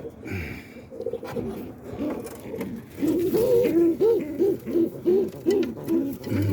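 Roller pigeon cooing, a run of rising-and-falling coos about two a second that starts about three seconds in; quieter clicks and rustling before it.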